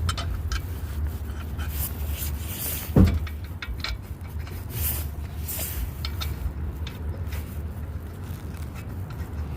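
Scrapes and clinks of tools and wheel being handled during a car tire change, with one heavy thud about three seconds in, over a steady low rumble.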